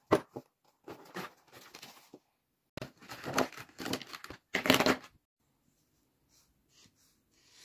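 A fabric zippered case of alcohol markers being handled: rustling of the case with markers knocking together, in two bursts, then a few faint ticks near the end.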